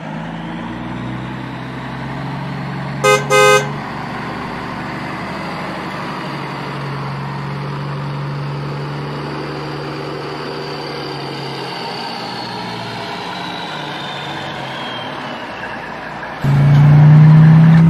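Dump truck engine running steadily as it drives, with two short horn toots about three seconds in. Near the end a much louder low drone starts.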